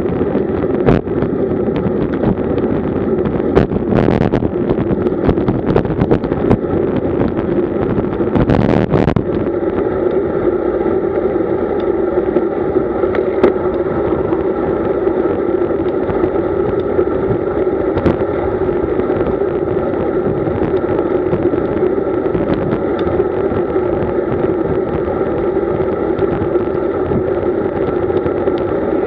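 Wind rush and road rumble on a camera mounted on a road bike riding in a fast group at about 35 km/h, with a constant droning hum. Two louder knocks, about 4 and 9 seconds in.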